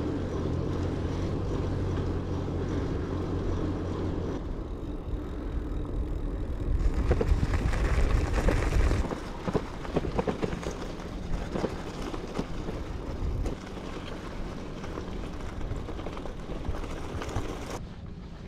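Riding noise from a bicycle: a low rumble of tyres and wind on the microphone, with a steady engine-like hum in the first few seconds and rattling knocks through the second half.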